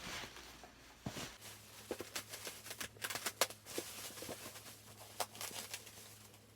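A small knife cutting open a package, with irregular scratchy clicks and crinkling as the blade works through the tape and wrapping.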